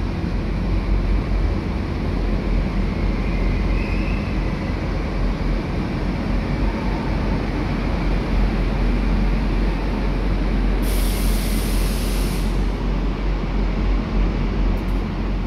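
Renfe Cercanías electric train running into the station and slowing to a stop, a steady rumble of wheels and motors. A loud hiss lasting nearly two seconds comes about eleven seconds in.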